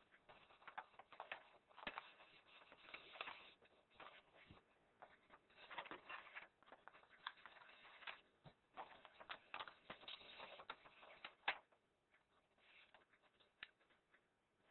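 A sheet of A4 paper being folded and creased by hand into a paper airplane: faint rustling and crinkling with sharp little clicks as the folds are pressed down. The loudest click comes a few seconds before the end, after which it goes quieter.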